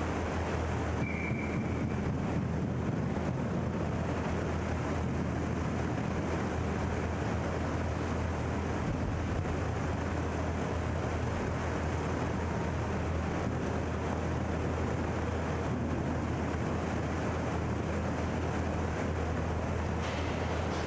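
Steady indoor roller-hockey rink room noise: a low hum under an even hiss, with distant play too faint to pick out. A brief faint high tone sounds about a second in.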